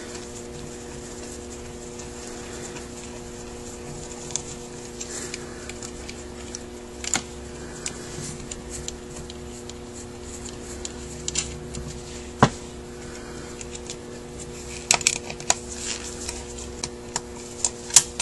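Scattered light clicks and taps of metal carburetor parts and tools being handled as a Rochester Quadrajet carburetor is taken apart by hand, with one sharp knock about twelve seconds in and a run of clicks near the end. A steady low hum runs underneath.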